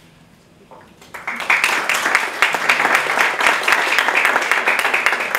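Audience applauding, starting about a second in and keeping up steadily: many hands clapping at once.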